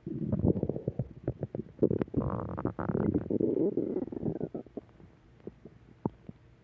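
A person's stomach growling and gurgling: irregular low rumbles broken by quick pops, with a higher, drawn-out tone a little over two seconds in. It dies down to a few faint pops over the last two seconds.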